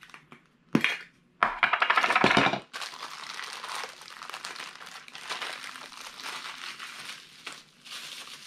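The pull-tab metal lid of a Funko Soda can peeled off with a short, loud ripping scrape about a second and a half in, followed by steady crinkling of the black plastic bag inside as it is handled and torn at.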